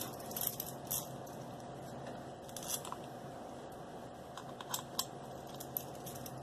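Small scattered metallic clicks and ticks from a 2 mm Allen wrench turning out small screws on an RC truck's chassis.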